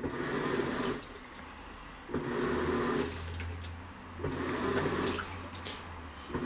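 Toshiba AW-404 top-loading washing machine agitating: the pulsator motor runs for about a second with a steady hum, pauses, and starts again roughly every two seconds, with water sloshing in the tub. This is the unusual noise the owner noticed after carrying the machine lying on its side, though he thinks it is no real problem.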